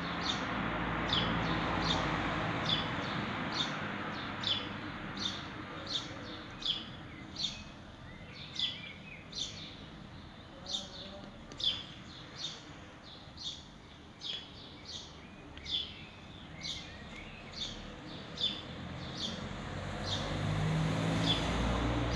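A bird repeating one short, downward chirp at an even pace, a little more than once a second, over a low background rumble that swells at the start and again near the end.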